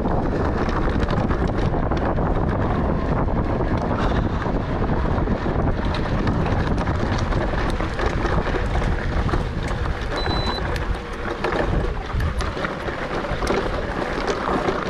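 Wind buffeting the microphone over a mountain bike rolling fast down a dirt trail: tyre noise on the dirt, with frequent sharp clicks and rattles throughout.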